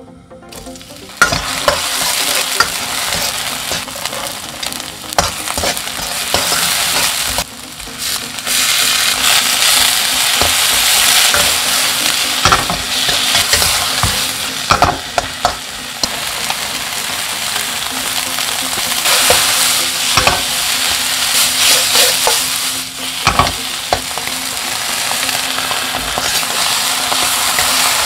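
Canned tuna, diced vegetables and corn sizzling in hot oil in a wok while a metal spatula stirs them, scraping and clacking against the pan. The sizzle starts suddenly about a second in and dips briefly about seven seconds in.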